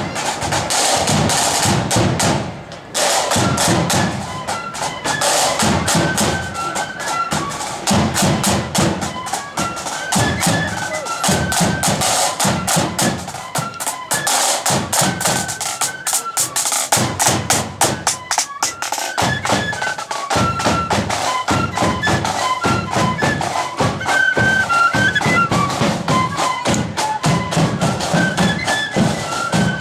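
Marching flute band playing a march: a flute melody over side drums and a bass drum beating steadily, with a brief break about three seconds in.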